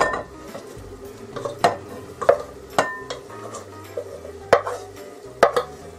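Cooked rice and broccoli being scraped and knocked out of an aluminium saucepan into a glass bowl, with about six sharp knocks and scrapes spaced through.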